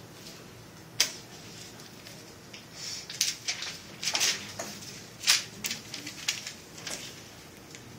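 Scattered sharp clicks and short rustles: one click about a second in, then an uneven cluster of clicks and rustling between about three and seven seconds.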